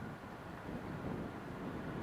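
Wind buffeting the microphone over a low rumble, with a faint steady high tone setting in about a second and a half in.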